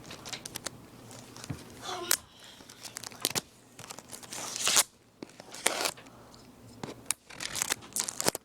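Crinkly packaging of a box of crackling-ball fireworks being handled and torn open, in irregular rustles and rips.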